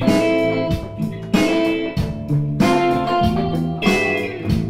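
Intro music: guitar chords struck in a steady rhythm, each one ringing on until the next.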